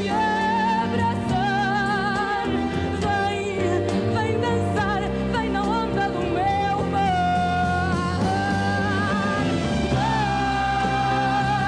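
A woman singing long held notes with a wide vibrato, backed by a live orchestra.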